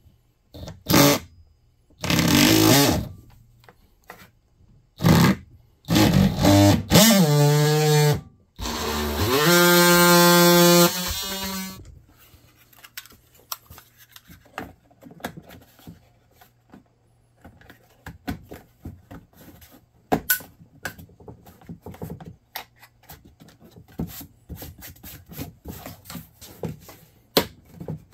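Cordless oscillating multi-tool cutting through a plastic dash panel in several short bursts, its buzz rising in pitch as it comes up to speed and then holding a steady tone for about two seconds. About halfway through the cutting stops, and light plastic clicks and handling follow as louvers are pressed into the panel.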